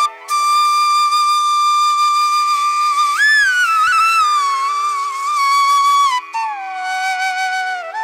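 Background flute music: one flute holding long, sliding notes. The note bends up and back about three seconds in and drops to a lower held note about six seconds in.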